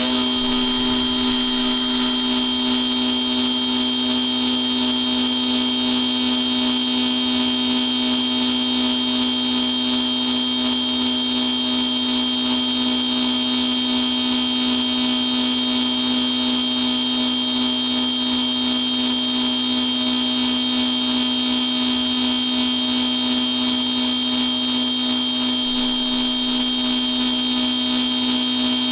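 CNC machine spindle running at a steady speed, a constant whine over a low hum, with the tool moving without cutting any material.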